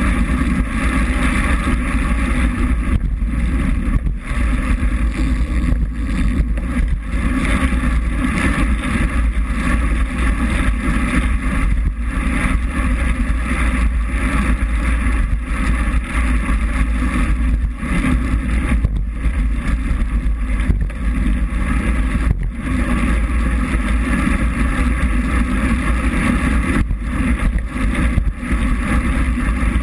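Steady rush of wind and wet-road noise picked up by a bike-mounted GoPro in its waterproof case at racing speed, with a heavy low rumble.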